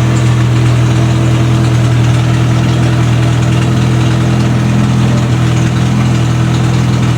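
Triumph Spitfire 1500's rebuilt 1.5-litre four-cylinder engine idling steadily.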